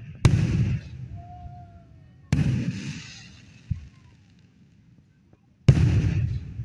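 Aerial firework shells bursting: three loud booms about two and three seconds apart, each fading out over about a second.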